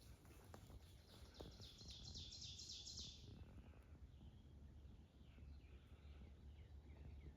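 Faint birdsong in woodland: a rapid high trill lasting about two seconds, followed by softer scattered chirps, over a low steady background rumble.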